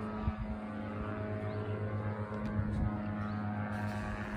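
A steady low motor hum held at one constant pitch.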